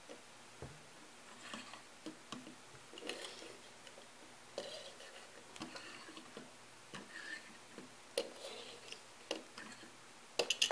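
Faint clicks, taps and short scuffs of small metal diecast toy trucks being handled, turned and set down on a wooden table, with a few sharper clicks near the end.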